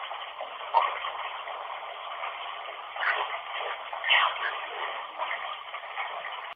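Steady rushing hiss of running water, with a few brief louder swells.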